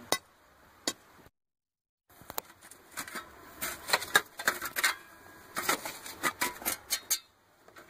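After a brief dropout, a metal shovel blade strikes and scrapes dry, stony soil in a quick, irregular run of knocks and scrapes as a planting hole is dug.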